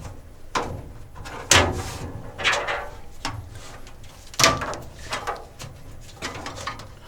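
Handling noises of a wiring harness being fed through a hole in a bill changer's cabinet: a series of knocks, clicks and scrapes, with two louder knocks, one about a second and a half in and one past the middle.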